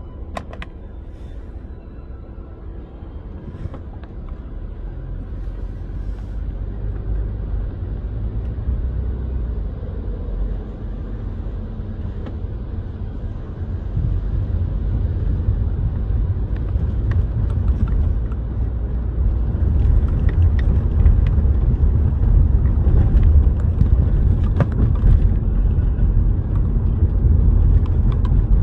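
Car driving: a low road and engine rumble that grows steadily louder, with scattered faint clicks.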